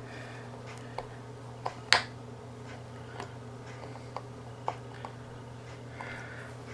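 Scattered small clicks and scrapes of a thin pick prying at the seam of a plastic panel on an Android TV box case, with one sharper click just under two seconds in. A faint steady hum runs underneath.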